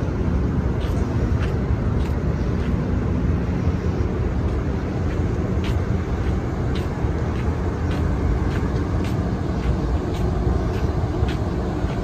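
Steady low rumble from the Asuka II cruise ship's machinery running at berth. Light footsteps on concrete tick about twice a second through much of it.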